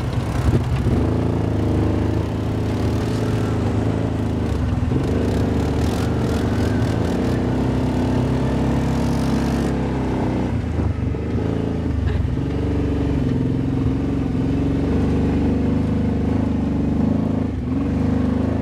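Kawasaki Teryx 750 side-by-side's V-twin engine running as it drives off-road, its note shifting up and down a few times with the throttle. A run of rattling clicks comes about five to eight seconds in.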